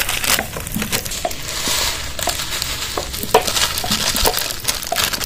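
Raw semai vermicelli sizzling in hot ghee in a metal wok: a steady frying hiss with scattered light clicks and rustles as the last strands are shaken in from the packet.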